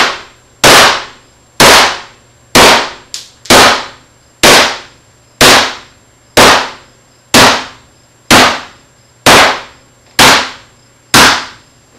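A computer keyboard being beaten in frustration with hard, loud blows, about a dozen evenly spaced at roughly one a second, each ringing out briefly.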